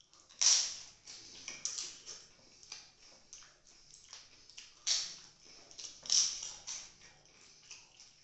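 Crisp papad (papadum) crunching between the teeth as it is bitten and chewed, in irregular sharp crackles; the loudest come about half a second in, near five seconds and just after six seconds.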